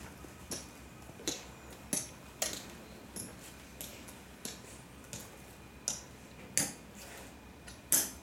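Slow, measured footsteps of hard-soled dress shoes on a concrete floor, about one and a half steps a second. The steps grow louder near the end as the walker comes close.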